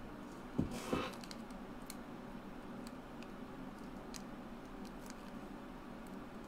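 Quiet room tone with two soft knocks about half a second and a second in, then scattered faint ticks and crinkles from a small clear plastic packet being handled.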